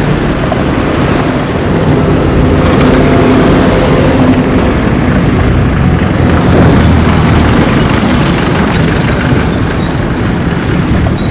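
Busy road traffic: cars and other motor vehicles driving past, a steady rush of engines and tyres, with one engine's hum standing out a few seconds in.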